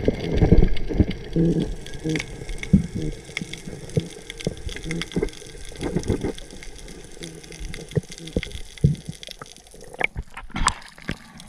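Water sloshing and gurgling in irregular bursts, with scattered clicks.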